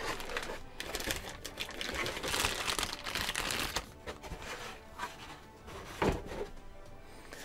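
Plastic bag rustling and crinkling in irregular bursts as a boxed AIO liquid cooler is lifted out of its pulp tray and unwrapped, with background music underneath.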